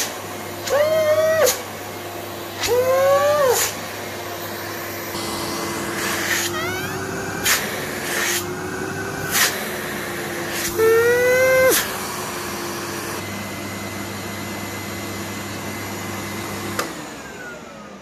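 AEG Öko Vampyr electronic canister vacuum cleaner running with a steady motor hum. Four times a whistle rises and falls as the airflow through the hose changes, with a few clicks between. Near the end it switches off with a click, and the motor winds down with a falling whine.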